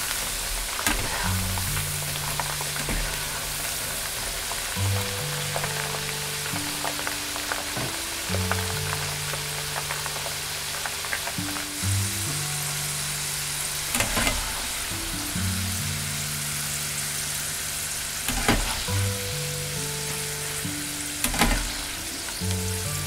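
Crinkle-cut fries deep-frying in a pan of hot oil: a steady, loud sizzle that breaks out as the fries go into the oil at the start. A few sharp clicks stand out near the middle and end, over background music with sustained low notes.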